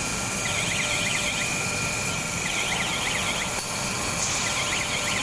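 Steady machinery noise of a glass-processing factory floor, with an electronic warning alarm warbling up and down in bursts of about a second, repeating every two seconds.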